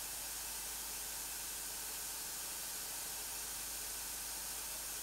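Steady, even hiss with a faint low hum underneath and no distinct knocks or clicks: the recording's background noise, with no audible work sounds.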